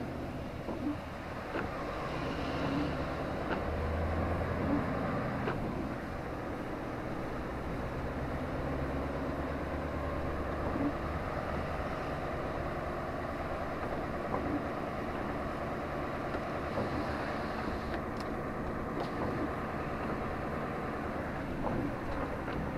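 Road traffic: a steady wash of passing vehicles, with a heavier low rumble from about four to eleven seconds in.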